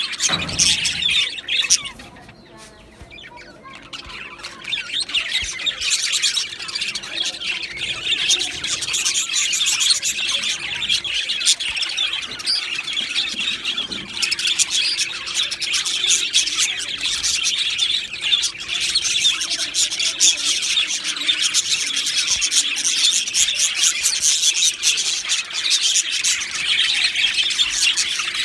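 A colony of budgerigars chattering and chirping, with many birds calling over one another in a dense, continuous warble. The chatter drops off briefly about two seconds in, then picks back up.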